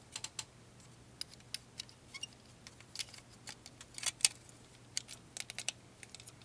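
Small, sharp clicks and taps of a CD player's drive mechanism being handled by hand as it is put back in place, a scattered run of light plastic-and-metal clicks with the sharpest about four seconds in.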